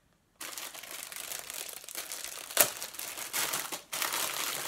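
Plastic packaging crinkling and rustling as a clothing item is handled and unwrapped from its bag. It starts after a brief silence and has one sharper crackle about two and a half seconds in.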